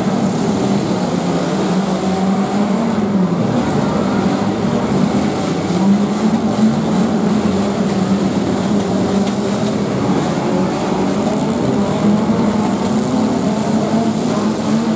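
Engines of several demolition derby cars running and revving together in the arena, loud and continuous, their pitch wavering up and down.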